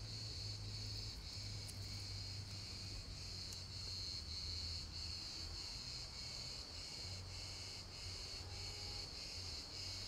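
Chorus of insects in the undergrowth, a steady high buzz pulsing about two or three times a second, with a faint low hum underneath.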